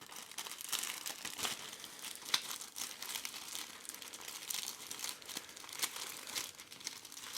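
A plastic zip-lock pouch crinkling and crackling as it is handled and opened by hand, with a quick run of sharp crackles throughout.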